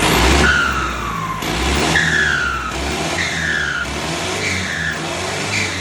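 Sonalika 60 DI RX tractor diesel engine revved in repeated blips, its modified turbo exhaust whistling with each one. The whistle falls in pitch as the revs drop, about five times, shorter toward the end.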